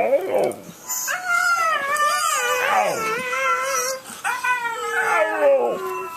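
Husky howling: about three long, wavering howls, each sliding down in pitch at its end.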